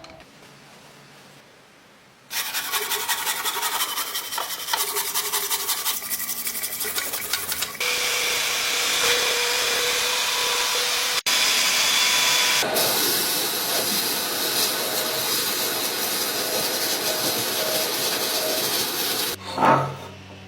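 Abrasive scraping on a workpiece. It starts about two seconds in as fast, rapid rubbing strokes. About eight seconds in it turns into a louder, steadier scraping noise with faint steady tones in it. A short loud burst comes near the end.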